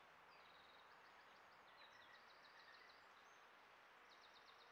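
Faint songbird song: three short trills, each a quick string of repeated high notes, over a steady background hiss.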